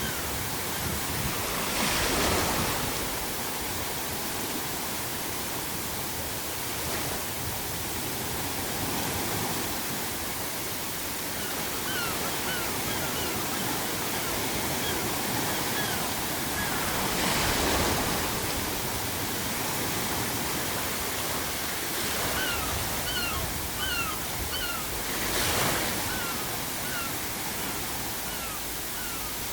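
Sea waves breaking on the shore over a continuous wash of surf, with three louder crashes: about two seconds in, a little past halfway, and near the end. Seagulls give short repeated cries several times in the second half.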